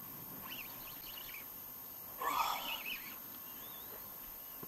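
Steady wind and sea noise around a small inflatable boat, broken by a few short high-pitched sounds, the loudest about two seconds in.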